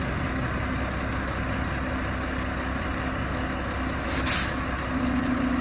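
Heil front-loader garbage truck's diesel engine running steadily, with a short hiss of released air about four seconds in. Near the end a steady hum grows stronger.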